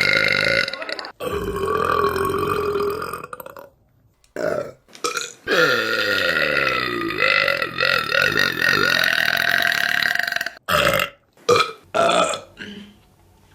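A series of women's burps: a short one, a long drawn-out burp of about two seconds, another short one, then a very long burp of about five seconds that drops in pitch, and a few short burps near the end.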